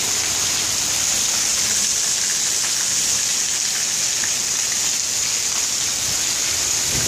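Heavy thunderstorm rain pouring down steadily, an even wash of noise without a break.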